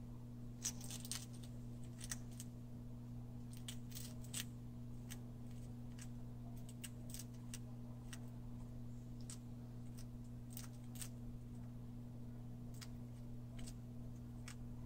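Cuban knight anole crunching a June beetle (Phyllophaga latifrons) in its jaws: irregular sharp crunches and clicks as the hard shell breaks, in small clusters, over a steady low hum.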